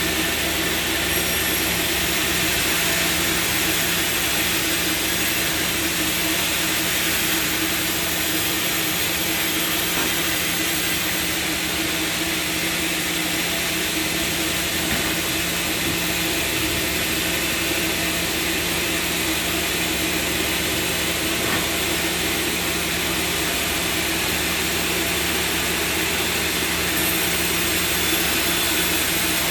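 Sawmill machinery running with a steady, unbroken drone and hum.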